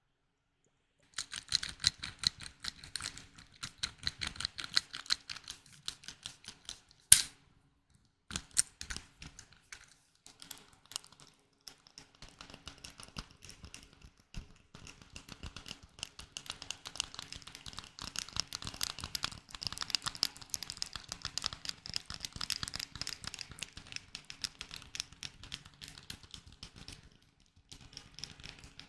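Rapid light tapping and clicking on hard objects, a close-miked ASMR trigger sound. One loud sharp click comes about seven seconds in, and the tapping grows busier in the second half.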